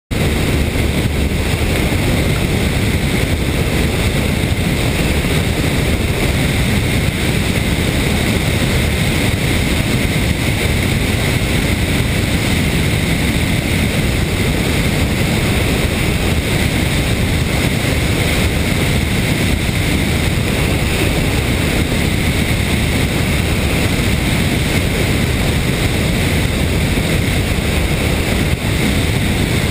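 Steady loud wind rush over a wing-mounted camera on a Van's RV-8A light aircraft, with the engine and propeller running underneath through takeoff and climb-out.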